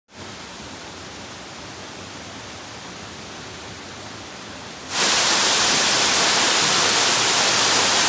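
A steady soft rushing noise, then about five seconds in a sudden cut to the much louder, steady rush of a waterfall pouring into its rock pool.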